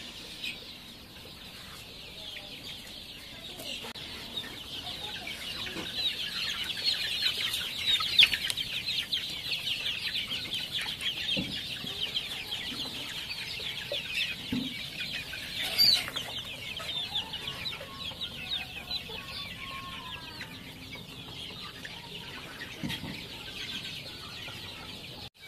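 A flock of young desi chickens cheeping continuously, many high-pitched peeps overlapping, with a brief sharp click about sixteen seconds in.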